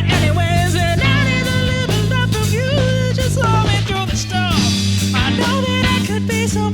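Live band playing an instrumental passage: electric bass and drum kit under a lead melody of sliding, bending notes.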